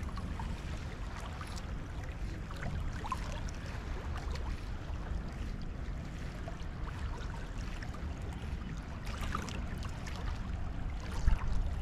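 Wind buffeting the microphone as a steady low rumble, with small waves lapping against the shoreline rocks and a few faint ticks.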